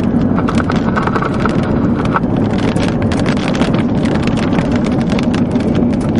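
Vehicle driving along a gravel road: a steady road and engine drone with gravel crackling and popping under the tyres throughout.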